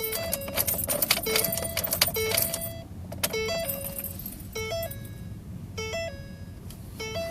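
Keys jangling and clicking, with a 2009 Ford Focus's two-note warning chime repeating. After about three seconds the jangling stops and only the chime goes on, about once every 1.2 seconds.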